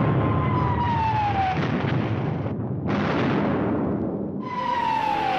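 Air-raid sound effects: the whistle of a falling bomb, a single tone dropping in pitch over about a second and a half, over a continuous rumble of blasts. A sudden explosion comes about three seconds in, and another falling bomb whistle near the end.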